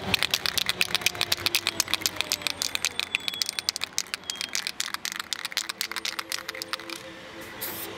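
Aerosol spray-paint can being shaken, its mixing ball rattling in quick, even clacks about six times a second, thinning out near the end.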